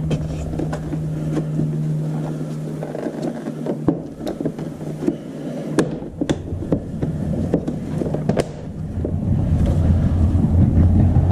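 Plastic scooter body panels and clips being handled and pressed into place: a run of sharp clicks and knocks. A steady low hum fades out after about three seconds, and a low rumble builds near the end.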